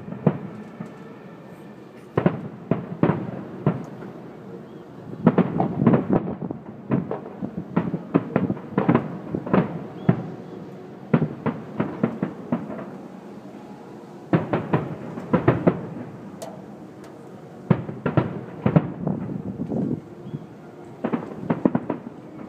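Aerial fireworks shells bursting: a long series of sharp bangs that come in clusters every few seconds, with short lulls between them.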